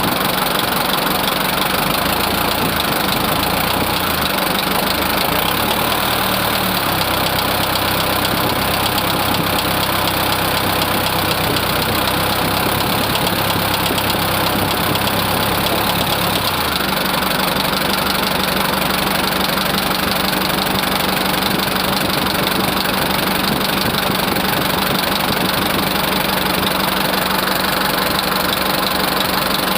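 Mitsubishi 4D34 four-cylinder diesel engine running at idle with a steady clatter, the noise being checked after testing. Its low drone changes about a quarter of the way in and settles into a steady low hum a little after halfway.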